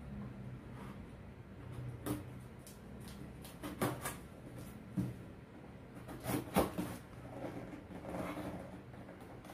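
A cardboard shipping box being handled and its packing tape cut open with scissors: scattered knocks and clicks, then a longer scratchy stretch near the end.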